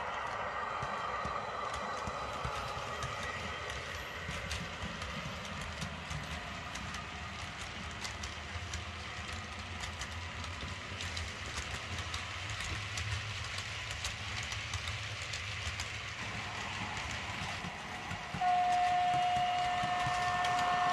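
Sound decoder of a Bachmann OO gauge Class 90 electric locomotive model playing its running sound, a steady hum, while the train's wheels tick over the rail joints. Near the end the decoder sounds the horn, one steady held note that is the loudest thing heard.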